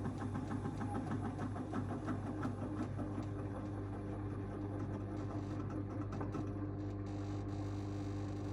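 AEG 8000 washing machine running, with a steady motor hum and a rapid, regular knocking from the drum that thins out about six seconds in. The owner hears this knocking mostly as the drum turns slowly; it disappears at higher spin speeds.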